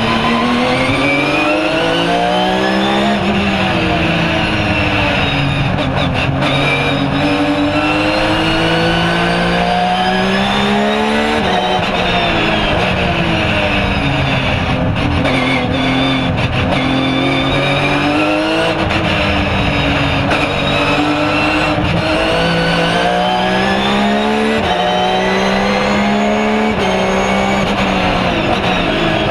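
Porsche 997 GT3 R's flat-six racing engine heard from inside the cockpit, pulling up through the gears in short steps of rising revs and then dropping away when it brakes and downshifts for corners, several times over.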